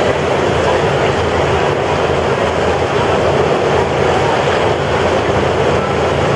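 Wind fans blowing steadily across an indoor pool to sail dinghies: a loud, even rush with a low hum underneath.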